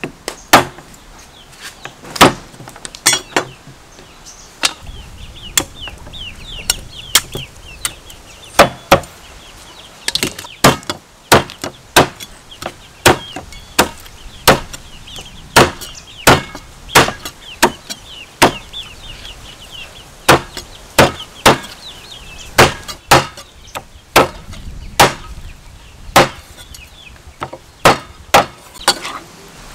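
Meat cleaver chopping a whole duck into pieces on a wooden chopping board: sharp chops in irregular runs, roughly one or two a second.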